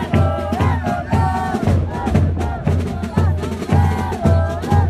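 Carnival street band of drums and brass playing a folk dance tune, with a steady drum beat about twice a second.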